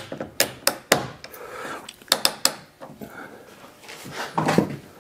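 Cheap plastic one-handed bar clamps being worked onto a wooden strip at a window frame: quick clicking in small groups, a few clicks at a time, then louder knocks and rattling near the end.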